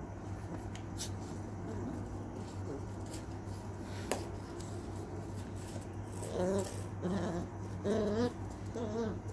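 Beagle puppies play-fighting on a tile floor: scuffling with a few sharp clicks early on, then short play growls and whines in the last three seconds.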